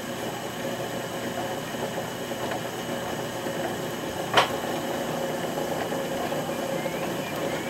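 Potter's wheel motor running with a steady hum, with a single sharp knock a little past halfway through.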